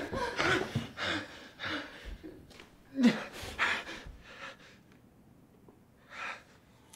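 A man gasping and breathing hard in pain, with a short strained voiced gasp about three seconds in; the breaths die down after about four seconds, with one last breath near the end.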